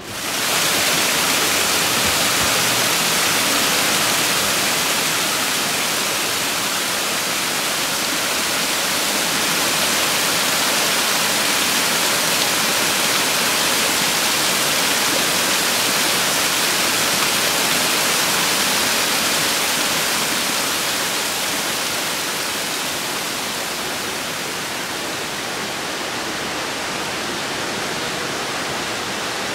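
Small mountain creek cascading over granite rock: a steady rushing hiss of falling water that comes in abruptly and eases slightly near the end.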